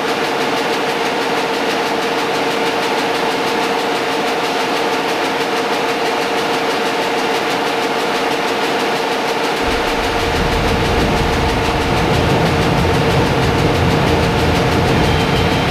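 Steady mechanical drone with several constant hum tones over a noisy wash. A deep low rumble joins abruptly about ten seconds in and carries on.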